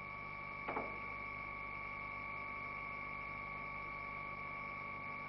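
Electric turning gear slowly rotating a Wärtsilä diesel engine's camshaft: a steady hum with a high whine. There is one short knock just under a second in.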